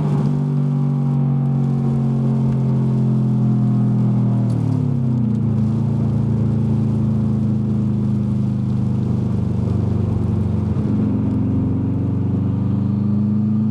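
2003 Subaru WRX's turbocharged flat-four engine running at steady raised revs. It drops to a lower engine speed about four and a half seconds in and climbs again near the end. The engine has a misfire that throws a cylinder misfire code.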